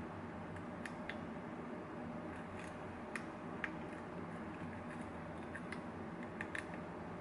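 Lock pick and tension wrench working the pins of an MX lock: small irregular metallic clicks and ticks as pins are raised and set, over a steady low hum.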